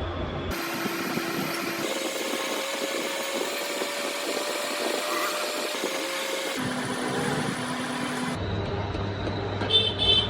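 Metal lathe running with a steady machine hum, in spliced clips: the hum's pitch and character change abruptly several times.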